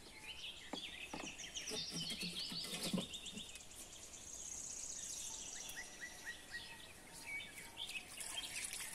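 Birds chirping and calling, with a rapid high trill around the middle. A few light clicks and knocks near the start come from clay pots and a spice jar being handled.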